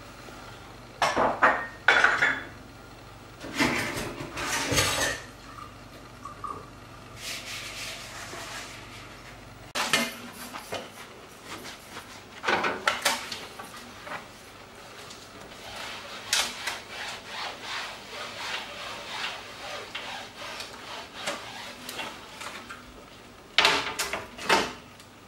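Kitchen cleaning: pots and dishes clatter on the counter during the first few seconds, then a cloth rubs and scrubs over ceramic wall tiles. Near the end come a couple of sharp knocks as a glass stove-top panel is handled.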